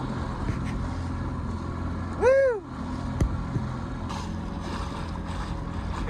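Yamaha outboard motor running steadily, pushing a dinghy along, with wind and water noise. About two seconds in comes one short person's vocal sound that rises and falls in pitch.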